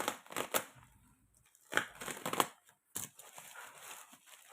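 Packaging being torn open by hand: irregular crinkling and tearing in several short bursts, the loudest about halfway through.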